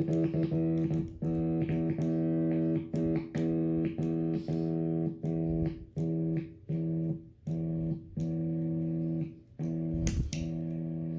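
Sustained electric guitar note or chord through the Boulevard Effects 3-in-1 pedal, chopped on and off by the pedal's momentary killswitch for a stutter effect. The cuts come rapidly at first, then about once a second.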